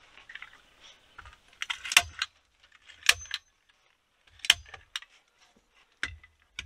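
Hand staple gun firing staples into a log: four sharp metallic snaps, the first about two seconds in and the rest a second or so apart, with fainter clicks of handling between them.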